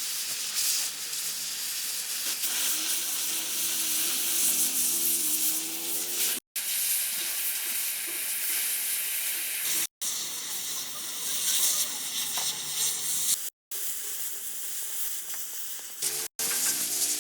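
Stick (shielded metal arc) welding arc on steel excavator bucket teeth, a steady hiss strongest in the higher range, broken four times by sudden cuts to silence.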